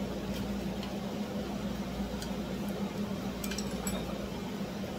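A few faint light clicks and clinks of small hand tools, a pick working at the chainsaw's housing and metal tools on the bench, several of them close together near the end. Under them runs a steady shop hum.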